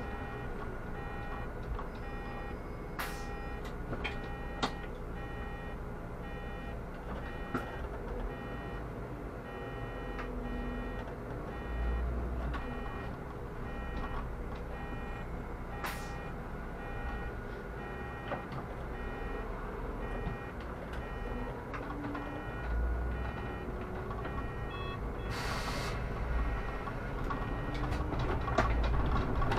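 Solaris Urbino 18 articulated city bus running with a low engine rumble, while an electronic warning beep repeats at an even pace. A few sharp clicks and a short hiss of air come near the end.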